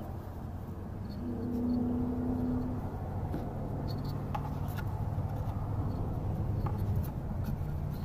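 Tape being wrapped around wiring by hand: scratchy rubbing and small scattered clicks over a steady low hum, with a brief droning tone from about one to three seconds in.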